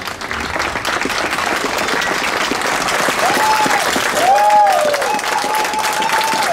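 Audience applauding steadily after the closing music ends, with a few drawn-out, rising-and-falling calls from the crowd over the clapping in the second half.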